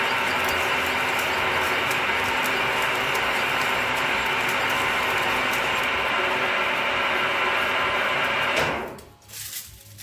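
Milling machine running at 200 RPM with a 40 mm drill bit cutting a large hole under manual quill feed: a loud, steady grinding noise of the gears and cutting. It drops away abruptly near the end.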